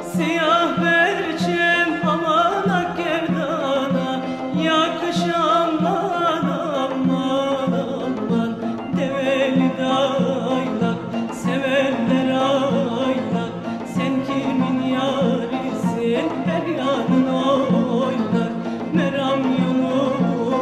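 Instrumental interlude of a Turkish folk song: an ensemble plays the melody over a steady rhythmic beat.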